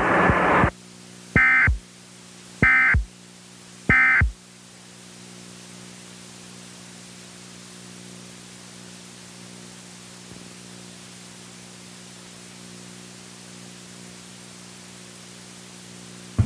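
Three short bursts of Emergency Alert System SAME digital data tones, about a second and a quarter apart: the end-of-message code that closes an alert. After them comes a steady low electrical hum with faint static.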